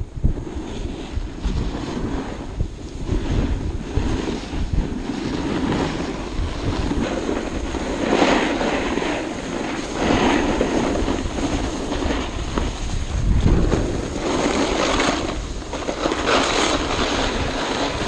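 Wind rushing over the microphone of a camera carried downhill on skis, with skis scraping and hissing over packed snow, swelling at each turn every few seconds.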